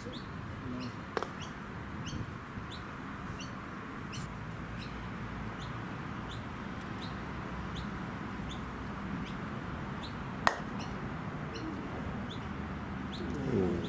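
A bird chirping over and over, short falling chirps about twice a second, against steady outdoor background noise. About ten and a half seconds in, a single sharp crack of a croquet mallet striking a ball, the loudest sound here, with a fainter click near the start.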